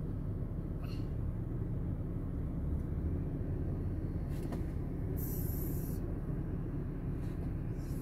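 Steady low road and engine rumble heard inside a car's cabin as it drives slowly, with a brief hiss about five seconds in.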